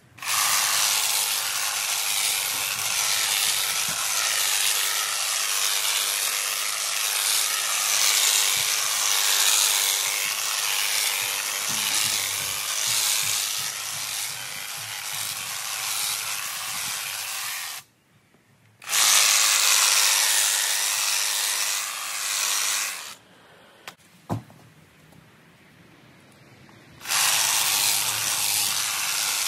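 Honda HHH 36 AXB cordless hedge trimmer running, its reciprocating blades cutting through a dense hedge. It runs steadily for about seventeen seconds, stops for a second, runs again for about four seconds, pauses for about four seconds with a single click, then starts again near the end.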